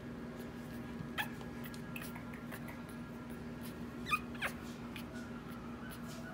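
Very young Maltese puppy squeaking: several short, high-pitched squeaks that fall in pitch, the loudest about four seconds in, over a steady low hum.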